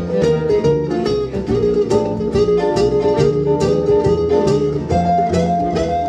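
Live acoustic band music: acoustic guitars strumming a steady, even rhythm over an upright double bass, with long-held melody notes above them.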